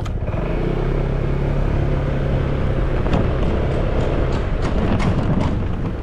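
Honda PCX scooter's engine running as it is ridden along, a steady hum under a loud rush of road noise, dropping away near the end.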